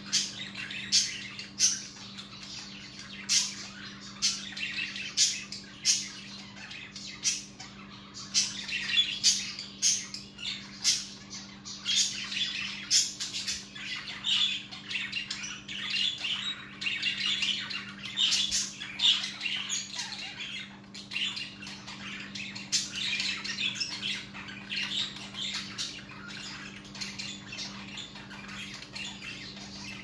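Budgerigars chattering: sharp chirps and squawks over a busy warble, densest in the middle, with a steady low hum underneath.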